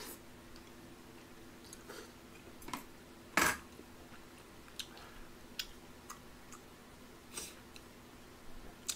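A person eating tteokbokki: chewing, with scattered small clicks of chopsticks against the pot and one louder short noise about three and a half seconds in. A faint steady hum runs underneath.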